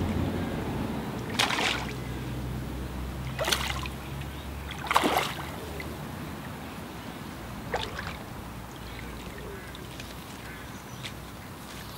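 A hooked tench splashing and thrashing at the surface four times as it is played in close to the bank. A low steady drone underneath fades out about halfway.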